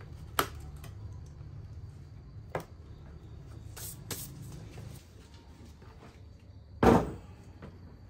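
Handling noise from an open steel desktop computer case: a few light clicks as parts are fitted, then one heavy thud about seven seconds in as the metal chassis is stood upright on a wooden table.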